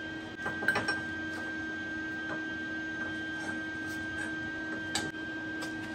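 Steel parts clinking and knocking against each other and the steel welding table as they are handled and clamped: a quick cluster of clinks about a second in and one sharp knock near the end, over a steady two-tone machine hum.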